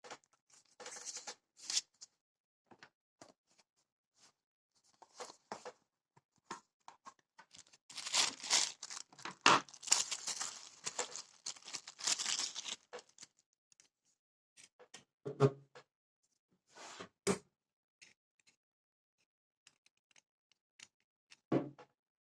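Handling noise: scattered clicks and taps, with about five seconds of scraping or rustling in the middle.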